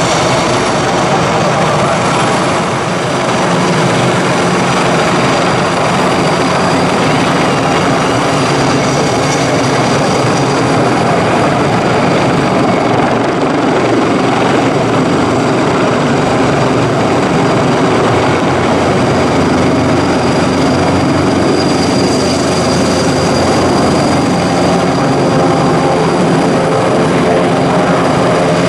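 Airbus Helicopters H225M Caracal twin-turbine military helicopter flying low and close. Its rotors make a loud, steady drone, with a thin high whine over it.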